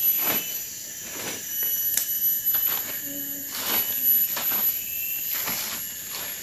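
A steady high-pitched chorus of insects, with scattered crackles and rustles of dry leaves as a smouldering leaf fire is stirred with a stick.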